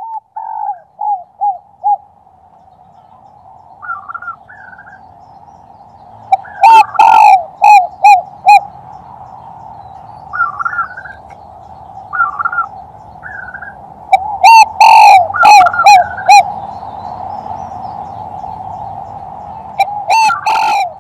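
Male spotted dove (tekukur) cooing its 'kuk-3' song, a recording of the kind played as a hunting lure call. It comes in phrases of about five to seven short coos every six to eight seconds, the loudest notes distorted. Short higher chirps fall between the phrases over a faint low hum.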